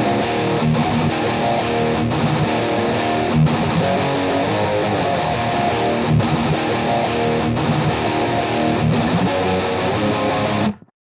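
Distorted electric guitar in C#/drop B tuning through a Seymour Duncan bridge humbucker, two rhythm tracks playing a metal riff. The riff has short breaks about every second and a half and cuts off sharply near the end.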